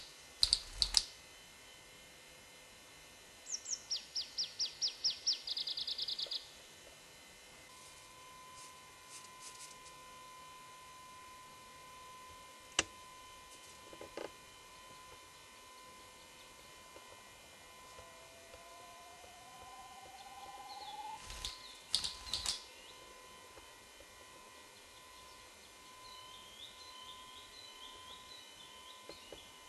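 Male Siberian spruce grouse displaying: a slow rising drawn-out call followed by loud sharp wing claps, once just at the start and again about two-thirds of the way through. A small songbird gives a fast descending trill early on, and faint high chirps come near the end.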